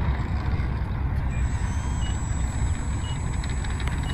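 Small electric RC aerobatic plane's brushless motor (Rimfire .10) running at taxi power, a thin steady high whine over a strong low rumble. Short faint beeps come about once a second from about two seconds in.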